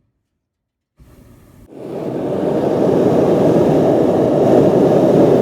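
Hot-air balloon's propane burner firing: a loud, steady roar that cuts in about a second and a half in after a moment of silence and swells to full strength within half a second.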